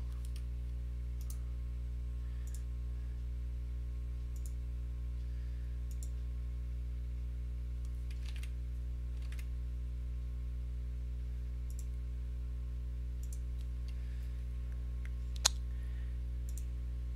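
Computer mouse clicking now and then, a dozen or so faint single clicks, with one sharper click about fifteen seconds in, over a steady low electrical hum.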